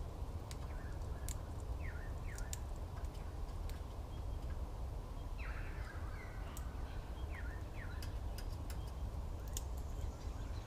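Birds calling with short, quick notes that slide downward in pitch, repeated every second or so, with a longer burst of calls about five and a half seconds in and scattered sharp clicks, over a steady low rumble.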